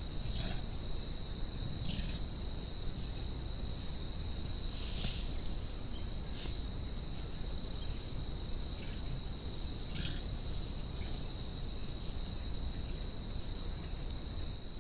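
Forest insects keeping up a steady high-pitched trill, with short chirps now and then, over a low background rumble.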